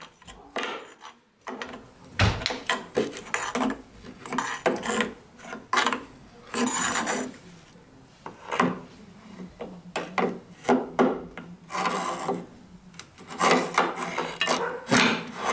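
Metal prying tools (a scraper blade, then a flat pry bar) worked in behind painted wooden doorstop molding to lever it off the door jamb: irregular bursts of metal scraping and rubbing against wood.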